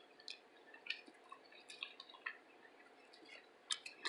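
Faint, scattered wet mouth clicks and smacks of someone chewing a mouthful of roasted potato: about a dozen small ticks, a little thicker near the end.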